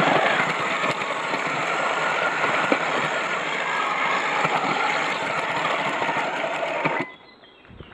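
Homemade RC tracked vehicle driven by a Turnigy G32 brushless outrunner motor, running steadily as it churns through a mud puddle and onto grass, its motor, drive and tracks making a constant clattering noise. The sound cuts off suddenly about seven seconds in.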